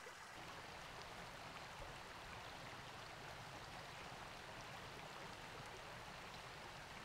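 Faint, steady rush of flowing river water, with no distinct events.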